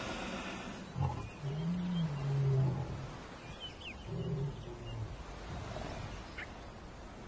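Lionesses growling low: a long growl starting about a second in and lasting some two seconds, then a shorter one about four seconds in.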